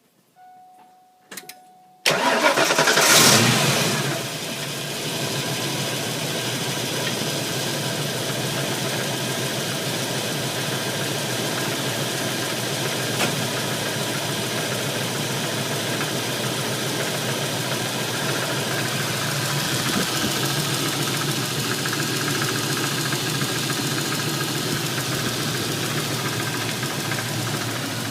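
A few clicks and a short beep, then a Ford 302 HO V8 cranks and catches on a warm start about two seconds in, flares briefly and settles into a steady idle. The owner takes this for an engine knock.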